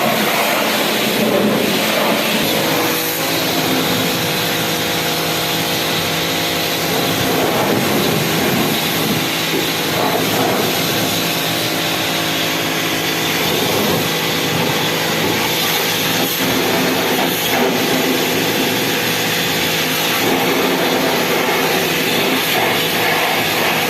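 A machine running steadily and loudly: a continuous hiss with a droning hum that settles in a couple of seconds in.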